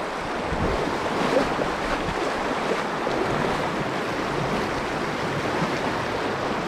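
Shallow, fast river water running over a rocky riffle: a steady rushing hiss.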